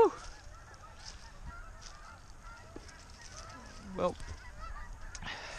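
Geese honking faintly in many overlapping calls, with a single spoken word about four seconds in.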